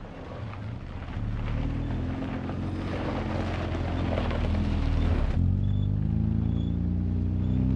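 Toyota LandCruiser 80 Series engine running on the move, its note climbing as it picks up speed. About halfway through, a rush of rough road or wind noise joins in and then stops abruptly.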